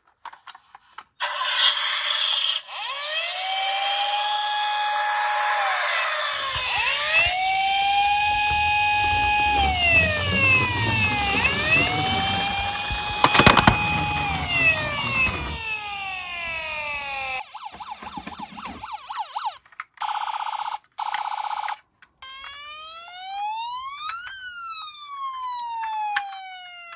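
Emergency-vehicle sirens, several at once, wailing up, holding and falling in pitch, with faster sweeping yelps in between. A low rolling rumble from about six seconds in carries a sharp clatter near the middle. Near the end come two short steady tones, then a wail that rises and falls about every two seconds.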